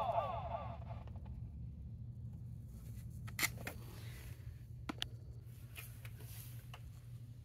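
Faint, scattered light clicks and taps, a few close together in the middle and the loudest about three and a half seconds in, over a low steady hum.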